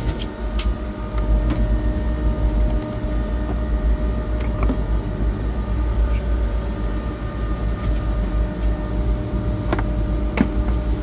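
Steady hum and low rumble of running machinery, with a few light clicks about four and a half seconds in and near the end.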